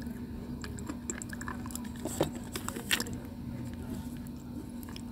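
Close-up biting and chewing of brittle white slate stone, an ASMR mouth sound: a run of crisp crunches, the loudest a little after two seconds and near three seconds in.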